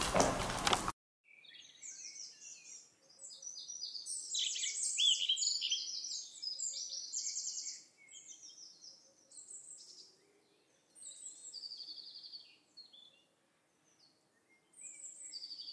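Songbirds singing: several overlapping warbled phrases, some high and trilling, coming in runs with short pauses between them.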